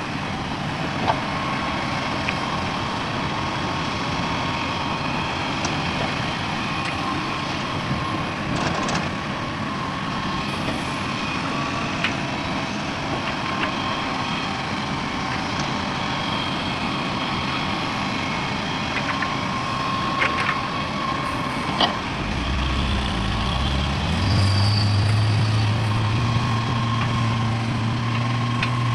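Heavy diesel machinery running steadily, with a few short clanks. About three-quarters of the way through, a deeper engine hum comes in and grows louder.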